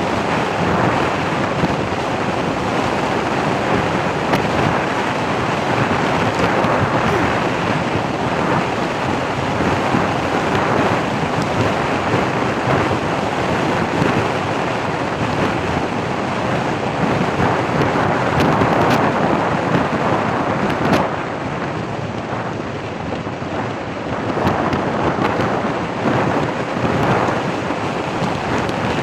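Steady rushing wind noise on the microphone of a vehicle travelling along a coastal road, swelling and easing slightly in level.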